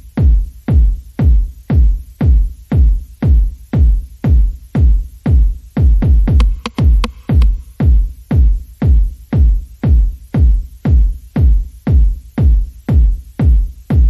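Background electronic dance music with a steady, heavy kick drum at about two beats a second.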